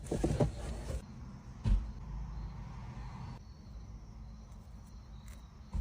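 Quiet room background with a low hum, a dull knock about one and a half seconds in, and a brief click near the end.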